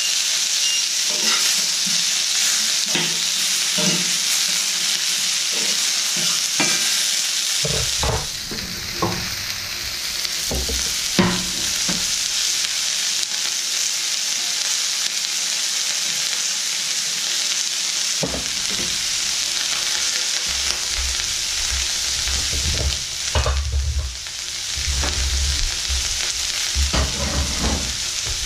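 Sliced onions sizzling steadily in a hot pan, with a fork stirring and tapping against the pan about once a second during the first several seconds. Occasional knocks and low rumbles come later.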